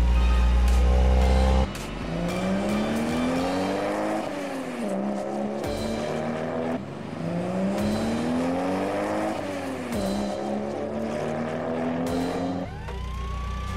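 Car engine sound effect accelerating, its note climbing steadily for a couple of seconds, then dropping back and holding, heard twice over. It follows a loud low hum with a falling tone that cuts off about a second and a half in.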